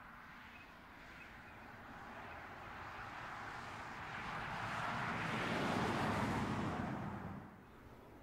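BMW 535i Gran Turismo with its turbocharged straight-six driving past: engine and tyre noise swell as it approaches, peak as it goes by, then drop away suddenly near the end.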